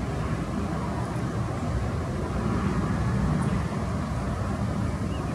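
Boeing 737-800's CFM56-7B jet engines at climb thrust just after takeoff, a steady low rumble.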